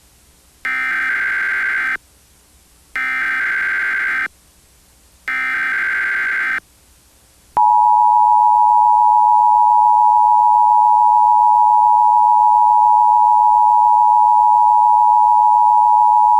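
Emergency Alert System tones: three short bursts of harsh, buzzing SAME header data about a second apart, then, about seven and a half seconds in, the steady two-tone EAS attention signal (853 and 960 Hz) starts and holds.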